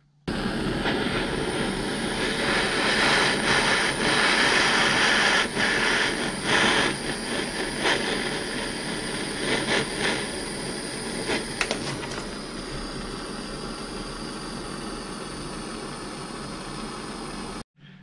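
Propane hand torch burning with a steady hissing roar while it heats a quick-connect terminal tube to melt solder into it. A few sharp crackles in the first two-thirds, and the roar eases slightly toward the end.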